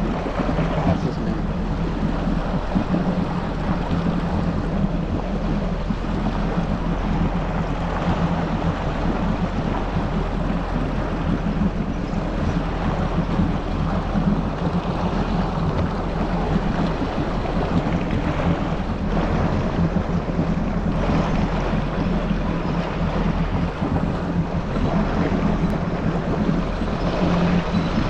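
Yamaha GP1800R SVHO personal watercraft's supercharged engine running steadily at low, no-wake speed, a constant low hum with water wash and wind noise over it.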